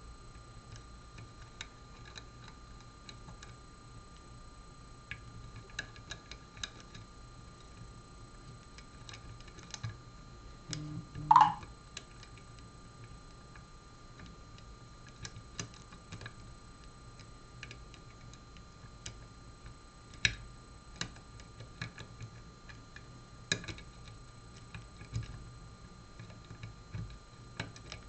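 Lock pick and tension tool working the pins of an MTL Interactive lock: faint, irregular small clicks and ticks as the pins are lifted and set. About 11 seconds in there is one louder, brief squeak that rises in pitch.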